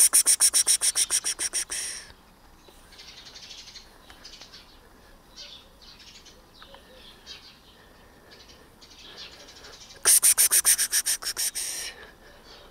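A small bird gives a rapid trill of high, evenly spaced notes lasting about two seconds and fading toward its end. It trills again about ten seconds later, with fainter chirps in between.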